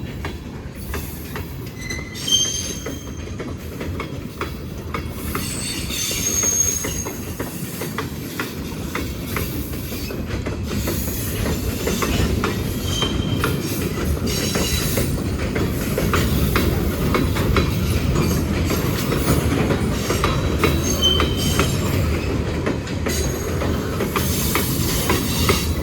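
Cars of a Norfolk Southern manifest freight train, loaded with steel coils, rolling past. The wheels click rapidly over rail joints, with a few brief high wheel squeals, and the rumble grows gradually louder.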